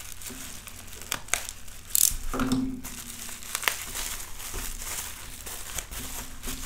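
Red plastic bubble wrap being pulled open and handled, crinkling and crackling irregularly, loudest about two seconds in.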